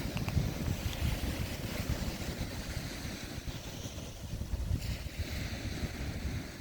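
Wind buffeting the microphone in gusts over the hiss of ocean surf, with a wave washing in about five seconds in.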